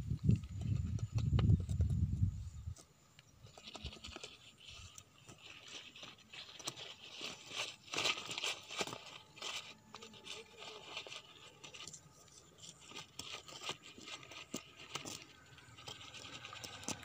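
A stick scraping and knocking against the concrete and brick sides of a narrow drain and rustling the leaves in it, as irregular clicks and scratches. A low rumble is heard for the first two seconds or so.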